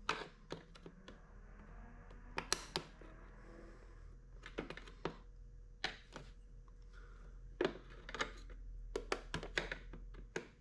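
Scattered light plastic clicks and taps, in small irregular clusters, from a flathead screwdriver pressing on the plastic clip tabs of a Mk8 Golf GTI side-mirror housing to push them in.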